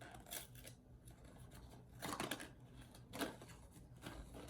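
A small toy surprise package being opened by hand: rustling and tearing of the packaging in short bursts, loudest about two seconds in, with a sharp click just after three seconds.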